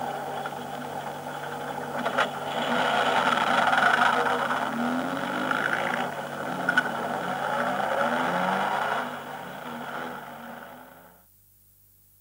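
Car sound effect: a car engine running as the car pulls away, its pitch rising as it speeds up, with a couple of sharp clicks. The engine fades away and is gone about eleven seconds in.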